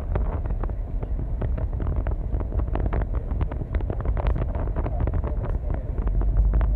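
Wind buffeting the microphone aboard a moving passenger ferry, with frequent crackles over a low, steady rumble from the ferry's engines.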